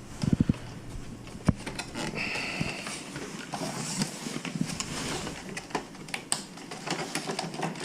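Hard plastic clicking, creaking and scraping as an HVAC control panel is pried and pulled free of its clip-in bezel. A quick cluster of clicks comes about half a second in and one sharp click about a second later.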